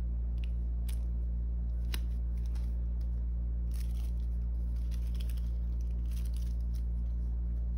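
Clear plastic photocard sleeves and binder pocket pages crinkling and ticking in scattered small rustles as the cards are handled. A steady low hum runs underneath.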